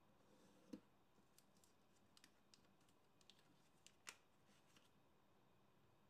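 Faint crackles and ticks of origami paper being folded and creased by hand, with a soft knock under a second in and the sharpest crackle about four seconds in.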